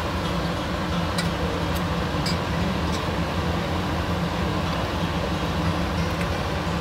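Pieces of young goat frying in olive oil in a stainless steel pot, a steady sizzle with a few sharp crackles or clicks over a constant low hum.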